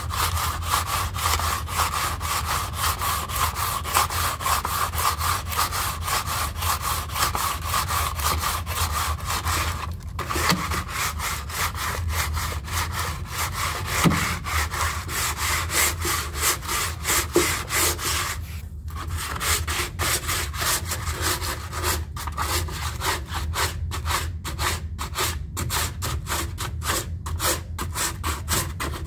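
80-grit sandpaper on a hand sanding block scraping back and forth over hardened Bondo fiberglass filler on a truck's sheet-metal rocker panel patch, in rapid repeated strokes. It pauses briefly about ten seconds in and again a little before the 20-second mark. A steady low hum runs underneath.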